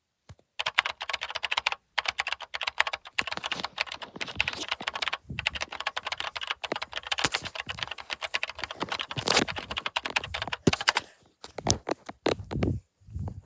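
A rapid, dense clatter of sharp clicks, much like fast typing, starting under a second in and thinning out to scattered clicks about 11 seconds in.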